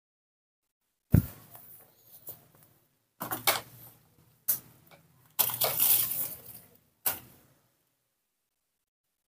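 A sharp knock about a second in, then four short bursts of rustling, crunching noise, the longest lasting about a second.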